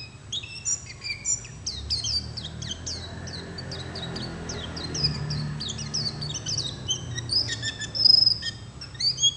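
Many small birds chirping together in a steady chorus of quick, falling chirps that overlap one another, over a faint low steady hum.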